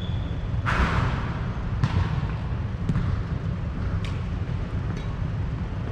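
Badminton rally: rackets striking a shuttlecock about once a second, five sharp hits, with a brief shoe squeak on the court floor at the start, over a steady low rumble.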